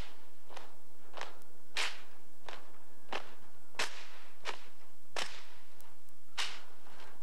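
Marine Corps drill platoon marching in unison on pavement: crisp, sharp heel strikes landing together in a steady cadence, about three every two seconds, with every other one louder.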